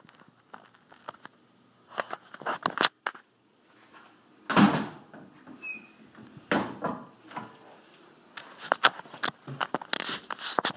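Bunches of sharp clicks and knocks, as of a closet door being handled and moved, with one heavier thump about halfway through.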